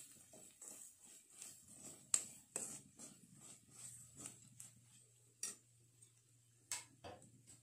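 Steel ladle stirring and scraping fried onions and spice powders around a pan: irregular soft scrapes and taps, with a few sharper clicks of the ladle against the pan.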